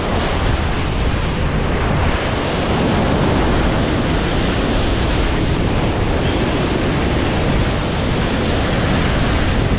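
Heavy surf breaking and surging over rocks, a loud, steady wash of white water.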